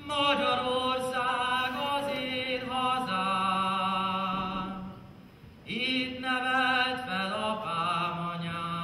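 A young man singing a Hungarian folk song solo and unaccompanied: long held notes with vibrato, with a short pause for breath about five seconds in before the next phrase.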